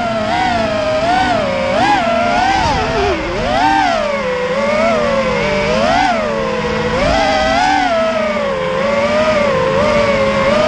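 FPV racing quadcopter motors whining, the pitch rising and falling over and over as the throttle is punched and eased through the flight.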